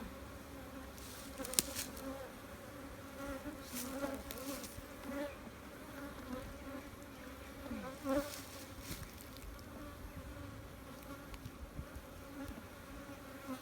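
Many honeybees buzzing around an opened hive: a steady drone with a slightly wavering pitch. A few sharp clicks sound over it, the loudest about one and a half seconds in.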